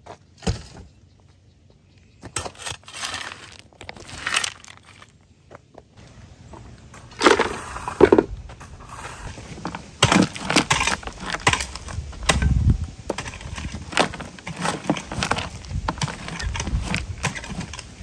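Loose gravel stones clinking and rattling against each other as gloved hands scoop and sift them in a plastic container. The sound comes as quick, irregular clicks, thickest in the second half.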